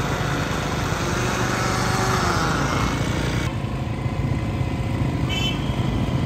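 Electric countertop blender running, blending a mango milkshake. About three and a half seconds in, the sound changes abruptly to a duller, lower steady hum.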